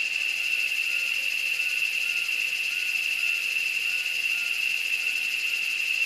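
Steady high-pitched insect chorus, a continuous shrill trill, with faint short chirping calls repeating about every half second beneath it.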